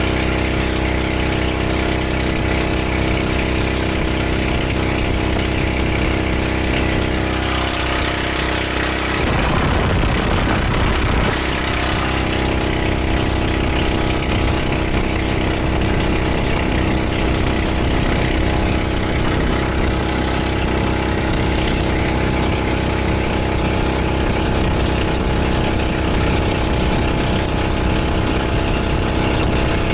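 Motorized bangka (outrigger boat) engine running steadily under way, with a brief rush of noise for a couple of seconds about ten seconds in.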